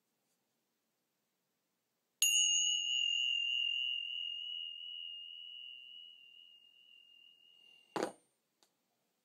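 A thin metal rod struck once, ringing with a clear high tone and a few higher overtones that slowly fade. About six seconds later a short knock stops the ringing dead.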